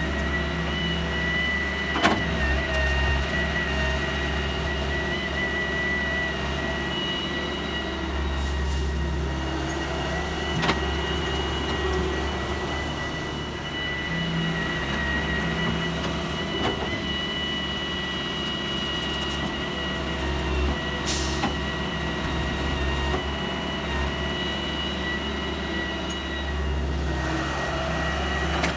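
Heavy diesel machinery running steadily, with a constant high whine over the engine and a few sharp knocks.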